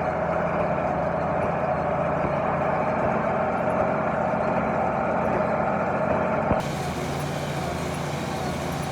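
Tractor engine running steadily under load while driving a hay baler. About six and a half seconds in the sound changes abruptly to a slightly quieter, hissier version of the same steady running.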